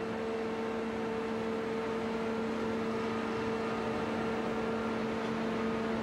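Steady industrial machinery hum in a steel plant, a constant drone with a low tone and its octave over a wash of noise.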